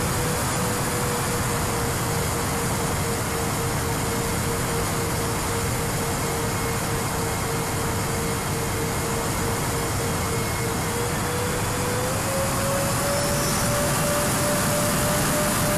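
Twin SunnySky 2212 brushless motors of a Sonicmodell Binary RC plane running in flight: a steady whine over heavy rushing wind noise from the onboard camera. The whine rises in pitch about eleven seconds in.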